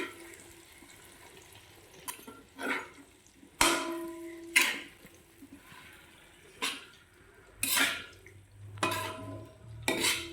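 A spoon stirring oily, spice-coated mango pieces in an iron kadai: separate scraping and clattering strokes about once a second, several ending in a short metallic ring from the pan.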